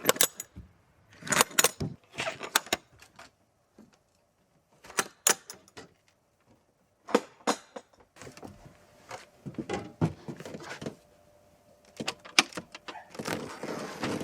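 Irregular bursts of light clinking and rattling, with quiet gaps between, growing busier near the end.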